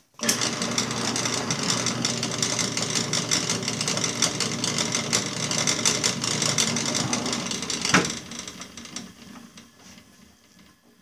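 Drill press running a quarter-inch bit through a metal lawn-mower clutch disc: a steady mechanical drilling noise that starts abruptly. About eight seconds in there is a sharp click, after which the sound dies away.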